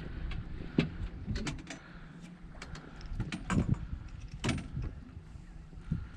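Scattered clicks and knocks of gear being handled aboard a small fishing boat, over a low steady rumble.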